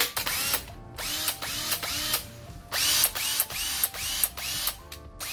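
Makita DHP458 18V cordless hammer drill motor running in about three bursts of the trigger, each spinning up with a rising whine and then holding speed. This is the test run after the armature, stator, carbon brushes and brush holders were replaced, and it runs well.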